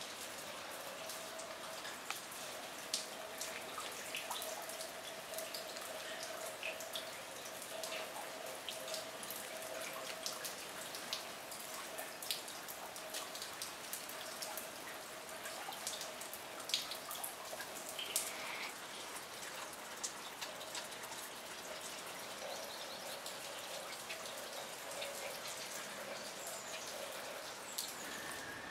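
Steady rain, with many separate drops dripping off a corrugated roof edge and landing sharply close by on wet ground and puddles. A faint steady hum runs underneath until near the end.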